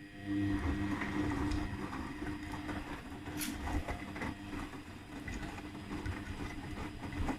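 Beko 8kg washing machine running, its drum motor giving a steady hum over a low rumble, with scattered clicks and knocks from the turning drum and a sharp click about three and a half seconds in.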